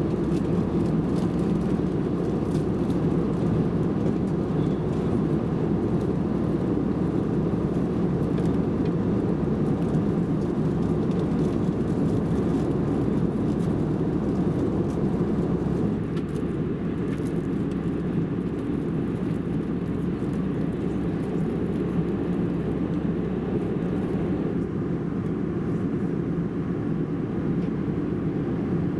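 Steady cabin noise of an Airbus A319 in flight, the even drone of engines and rushing air heard from a window seat over the wing, easing slightly just past halfway.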